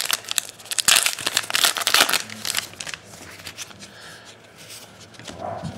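Foil wrapper of an Allen & Ginter trading-card pack crinkling loudly as it is handled and the cards are pulled out, for about the first two and a half seconds, then quieter rustling as the cards are handled.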